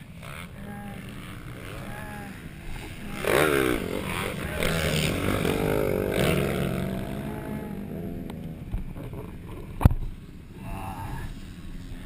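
Another motocross dirt bike's engine revving as it passes close by, its pitch sweeping up and down, loudest from about three to seven seconds in. A single sharp knock near the ten-second mark.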